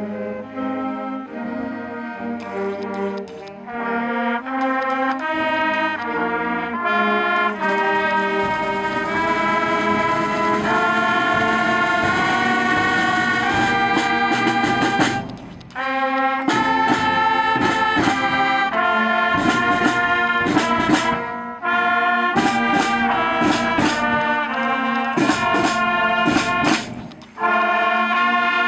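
School band of brass, woodwinds and drums playing together. Sustained chords alternate with stretches of short detached notes, with brief pauses between phrases about halfway through and near the end.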